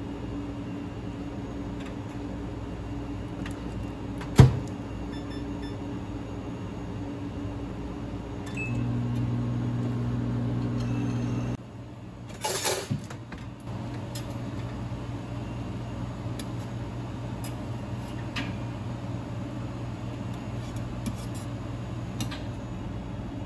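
Steady hum of countertop cafe cooking appliances, with one sharp clack about four seconds in as the bagel oven's door is shut. A louder hum runs for about three seconds from about nine seconds in and cuts off suddenly, followed by a short clatter as the contact grill's lid is handled.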